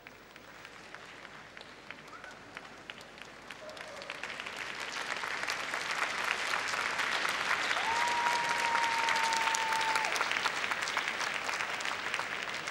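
Audience applauding, building from scattered claps to full applause by about halfway through. A single held high tone sounds for about two seconds near the peak.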